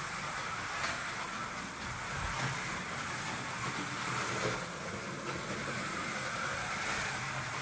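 Scalextric slot car's small electric motor whirring as the car laps the plastic track, its whine rising and falling as the car speeds up and slows through the corners.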